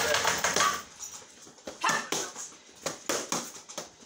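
Boxing gloves punching focus mitts: several short, sharp slaps in quick combinations from about a second in. For the first second a loud, drawn-out pitched whine comes before the punches.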